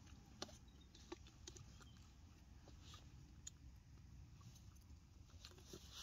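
Near silence: a low steady rumble, with a few faint, short clicks and taps of cutlery on a plastic plate.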